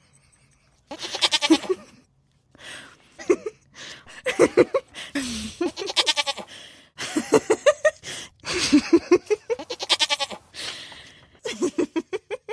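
Young goats bleating repeatedly: a string of quavering calls, each about a second long, with short gaps between them.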